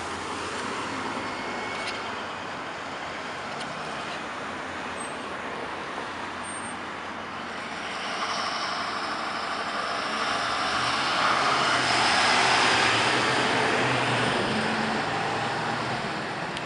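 Road traffic going by on a city street, then a school bus drives past in the second half, its sound swelling to the loudest point and fading again.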